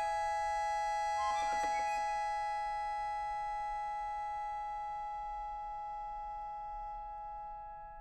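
Accordion holding a sustained chord, with a brief flurry of quick notes about a second in, then fading slowly in a long diminuendo until it dies away near the end.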